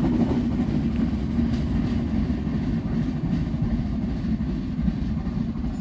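A passenger train running on the line: a steady low rumble of wheels on rail with a steady hum and a few faint clicks, easing slightly toward the end.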